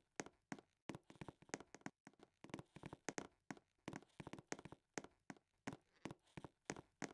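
Faint, irregular taps and clicks, about three or four a second, unevenly spaced.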